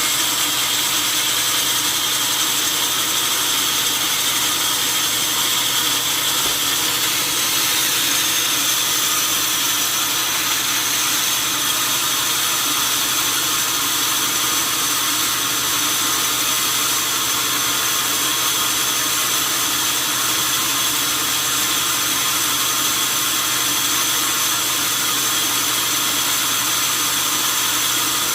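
Large sawmill saw cutting through a log, running at a steady level with a continuous high-pitched whine.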